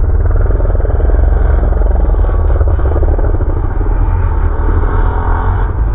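Several motocross bikes accelerating hard away from the start, their engines blending into a loud, steady rumble.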